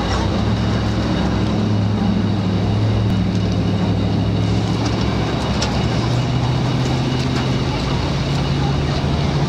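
Vehicle engine running steadily with a low drone, over road traffic noise, with a few faint clicks and knocks.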